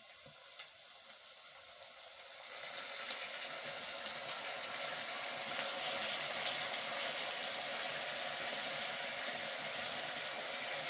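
Boiled beef with pilau masala frying in a pot, sizzling steadily; the sizzle grows louder about two to three seconds in, as soy sauce goes into the hot pot.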